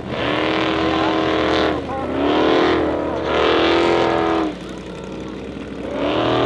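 Formula Offroad hill-climb car's engine revving hard in four bursts of full throttle as it claws up a steep dirt slope. The revs drop back for over a second after the third burst, then pick up again near the end.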